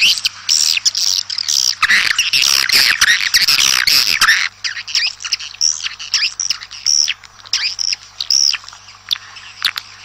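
Many edible-nest swiftlets calling at their nests: a dense chorus of overlapping twittering chirps for about the first half, thinning to separate high chirps after that.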